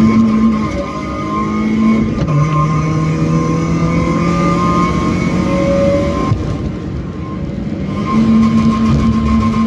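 BMW E36 318ti's M42 1.8-litre four-cylinder engine running hard on a racing lap, heard from inside the cabin over road and wind noise. Its pitch drops about two seconds in, dips again around six seconds in as the car brakes into a corner, and climbs back near the end.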